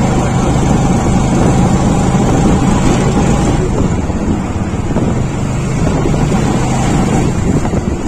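Wind noise on the microphone and road noise from a moving vehicle, with a steady engine hum that fades about three and a half seconds in.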